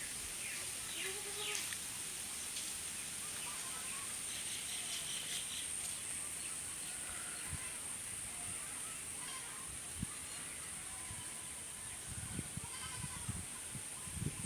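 Quiet outdoor ambience: a steady high-pitched whine with faint scattered chirps and calls over it.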